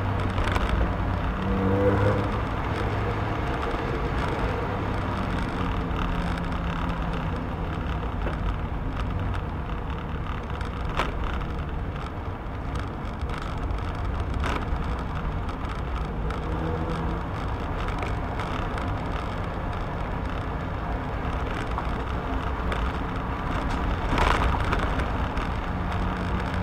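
Mazda MX-5's four-cylinder engine and tyre noise heard from inside the car as it drives, a steady drone whose engine tone comes and goes with the throttle. A few sharp clicks, the loudest near the end.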